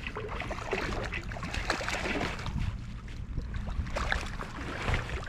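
Creek water running, with wind rumbling on the microphone and scattered small knocks and splashes.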